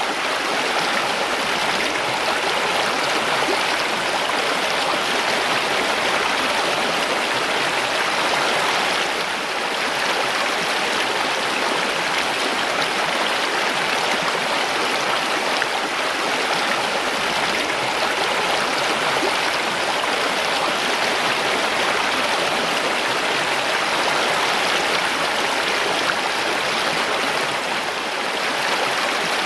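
Mountain stream rushing over rocks: a steady, even babble of water.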